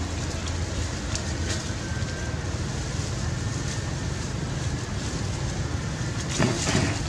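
Steady low rumbling outdoor background noise, with a brief louder sound near the end.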